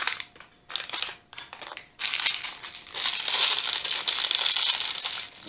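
Lego minifigure blind-bag packet being crinkled and scrunched in the hands as it is opened: a few short scrunches, then continuous crinkling from about two seconds in.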